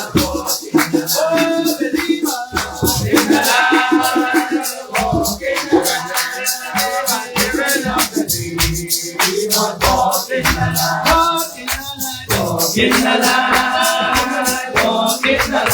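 Upbeat music with singing over a steady, quick beat and a bass line.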